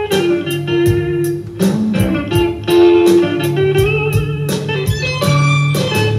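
Blues-style guitar music with a drum beat, played back through a speaker system built around the Kenwood KSW-7000 passive bass-reflex subwoofer as a listening demonstration.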